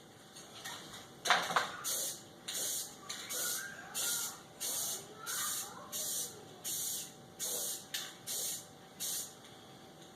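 Aerosol spray-paint can sprayed in a quick series of short bursts, about a dozen, each well under a second, after a couple of knocks near the start.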